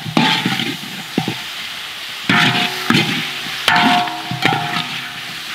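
Metal spatula scraping and knocking against a wok while gecko pieces stir-fry, with about one scrape a second, over background music.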